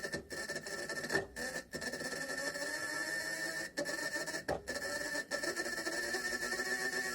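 A motor running steadily, with a high whine over a lower wavering hum; the sound cuts out briefly several times.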